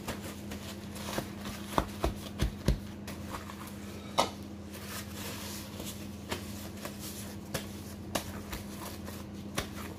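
Paper kitchen towels rustling and crinkling as raw pork pieces are patted dry by hand, with scattered light clicks and a few sharper taps, the loudest between about two and four seconds in. A steady low hum runs underneath.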